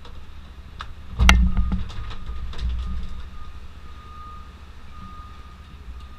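A vehicle's reversing alarm beeping over a low engine rumble, with one loud thump about a second in and a few lighter knocks.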